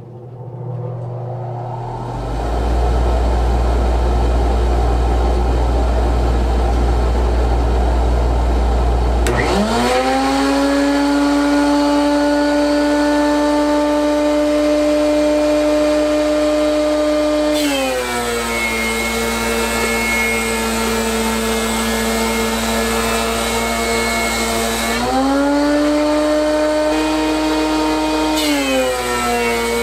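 Shop vacuum running, then a DeWalt DW735 thickness planer fitted with a Shelix helical cutterhead runs up to a loud whine. The whine sinks in pitch as the motor takes the load of a board feeding through the cut, rises again when the board clears, and sinks once more near the end as wood enters again.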